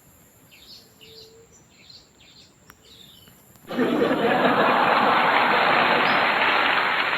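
Several faint bird chirps, then about three and a half seconds in a loud, steady hiss of noise starts abruptly and holds.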